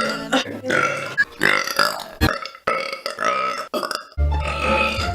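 A woman burping several times in a row, with background music. The last burp is a long, deep one starting about four seconds in.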